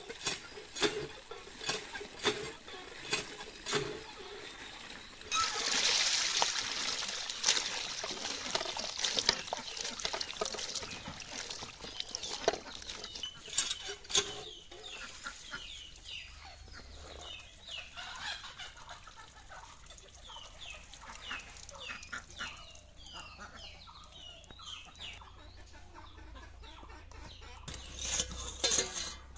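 Hand pump handle knocking with each stroke, then water gushing from the pump spout into an aluminium bowl of chopped bottle gourd, starting about five seconds in and easing off after about fifteen seconds. Chickens cluck repeatedly through the second half.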